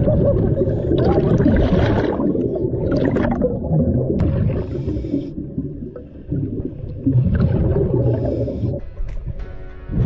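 Scuba diver breathing underwater through a regulator, heard muffled: a constant low rumble with bubbling rushes of exhaled air every second or two.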